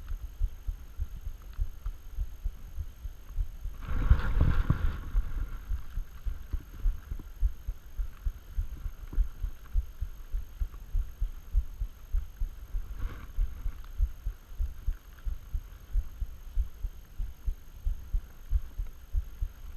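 Steady low thuds repeating about twice a second, with a brief louder rustling burst about four seconds in and a fainter one later.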